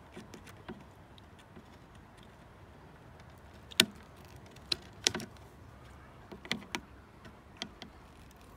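Needle-nose pliers clicking and tapping against the mirror's metal wire terminals and plastic backing plate: about half a dozen sharp clicks, scattered from about four seconds in, the first the loudest, over a faint low hum.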